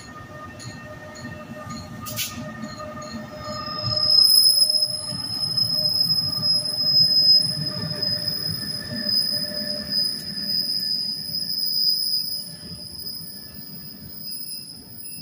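NJ Transit electric commuter train pulling out, its wheels squealing on the rails: a steady high-pitched squeal starts about four seconds in and holds over the train's low rumble.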